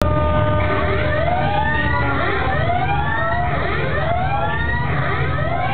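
Alarm sound effect played over loudspeakers: rising whooping sweeps repeating over and over, several overlapping, with a few steady tones above a continuous low rumble.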